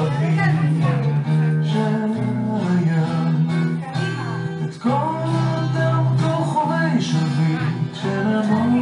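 Recorded song with guitar accompaniment and a singing voice, played as dance music.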